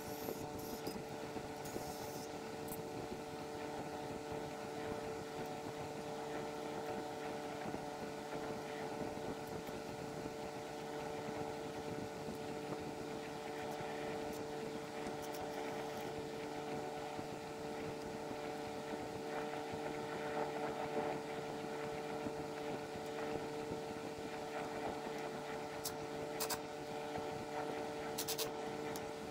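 A steady mechanical hum at a few fixed pitches, with a few faint light clicks.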